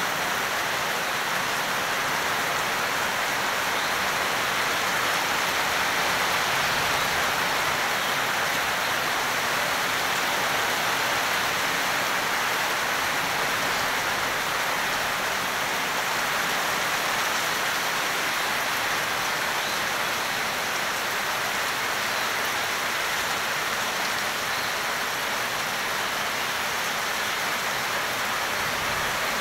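Heavy rain pouring through a wire-mesh aviary roof onto leafy plants and brick: a steady, even hiss that holds at one level throughout.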